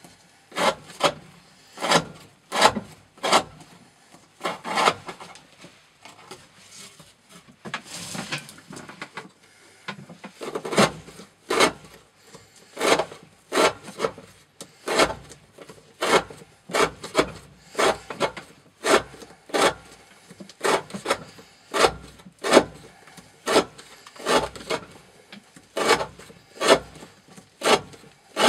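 Knife blade of N690 steel slicing through rope again and again in an edge-retention cutting test: short, sharp cutting strokes, about two a second, with a looser, fainter stretch about a third of the way in.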